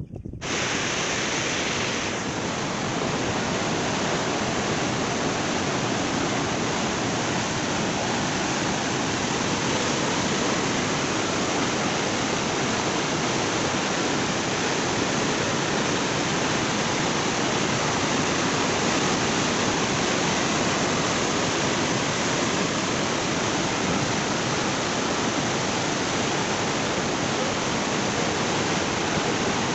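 Floodwater spilling over a concrete weir and churning in the pool below, a steady rush of water.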